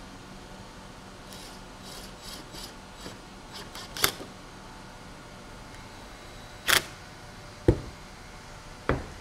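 Handling noises of a cordless drill and PVC trim boards on a plywood worktable: soft rubbing and scraping, two short sharp scrapes about four and seven seconds in, then two knocks near the end, the drill being set down on the table.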